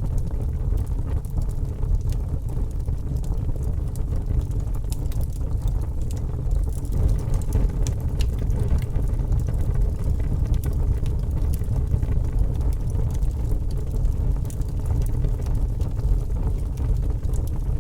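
Fire crackling: a steady low rumble of burning with many small sharp pops and snaps, coming thickest around the middle.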